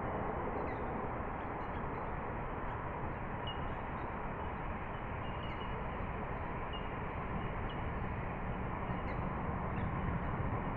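Steady outdoor background hiss and rumble, with a few faint bird chirps scattered through it.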